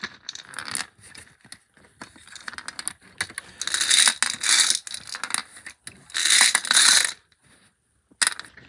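Lottery balls clattering and rattling together as they are mixed, with two louder spells of dense clicking about four and six seconds in.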